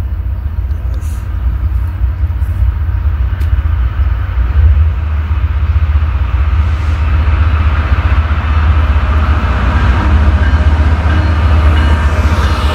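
Norfolk Southern diesel road locomotives leading a freight train, approaching and coming alongside: a low engine rumble with train noise that grows steadily louder over the second half as the lead units draw level.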